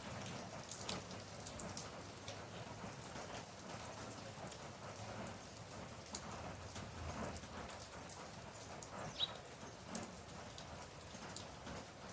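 Steady rain falling, with many scattered sharp drop ticks on a surface, and a brief high chirp about nine seconds in.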